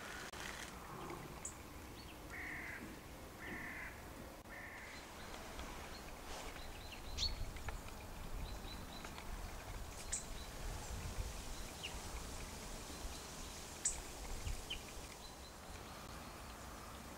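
A crow cawing three times in quick succession, followed by scattered high bird chips and a few sharp clicks.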